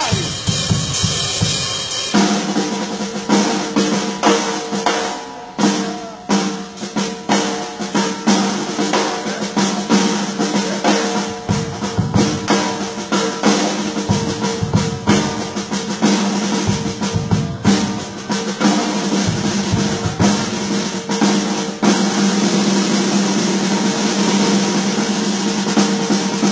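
Drum kit played in a groove with fast fills and rolls on snare, kick and rims. Steady pitched notes are held underneath from about two seconds in.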